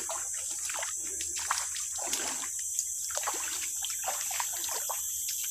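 Feet wading through shallow, muddy floodwater, splashing and sloshing with each step at an irregular walking pace.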